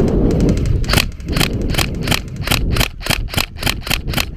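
Airsoft gun firing a rapid string of shots, about five a second, starting about a second in. Wind buffets the microphone before the shots begin.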